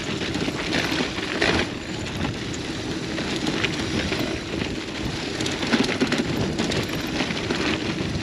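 Gravel bike descending a rocky dirt trail: tyres rolling over loose gravel and rock with a continuous rushing noise, broken by frequent small clicks and knocks from stones and the bike.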